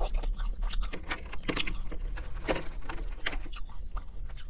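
Close-miked chewing of McDonald's chicken nuggets and fries: a quick run of small crunches and wet mouth clicks.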